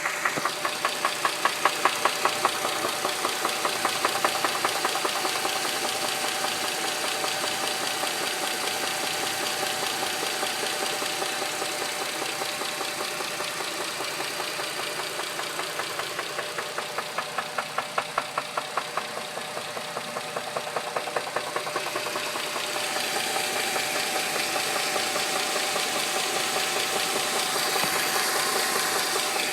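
Dodge Charger 2.7-litre V6 running with a loud, rapid, steady knock. It appeared after the engine ran nearly out of oil and has outlasted new lash adjusters; the owner tags it as rod knock.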